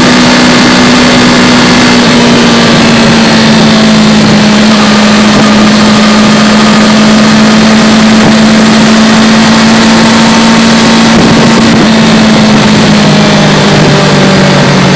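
Yamaha R3's 321 cc parallel-twin engine and exhaust cruising steadily in sixth gear under heavy wind rush. The engine note sags slowly and drops in pitch near the end as the throttle eases off.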